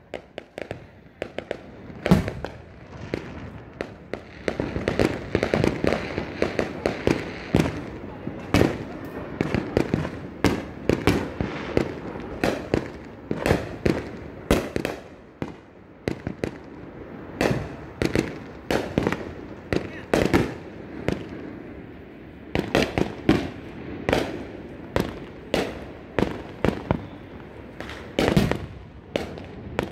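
Fireworks exploding all around: an irregular barrage of sharp bangs, roughly one or two a second, from aerial shells and firecrackers, over a continuous rumble and crackle between the bangs.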